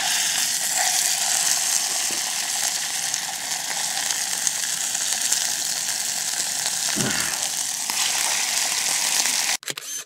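Minute steaks sizzling in hot oil in a frying pan, the loud, steady sizzle starting the moment the meat is laid in. The sizzle cuts off suddenly near the end.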